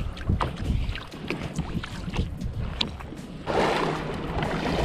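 Shallow seawater sloshing and splashing around a kayak being brought ashore through the shallows, with scattered light knocks. About three and a half seconds in, a louder steady rush of water and wind noise sets in.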